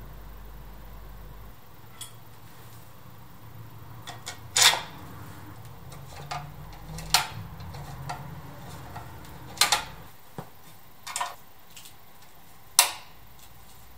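Metal parts clinking and knocking as a rear fender is held against a motorcycle's tubular steel subframe and fastened. Four sharp, louder knocks come a few seconds apart, with lighter taps between them, over a low steady hum.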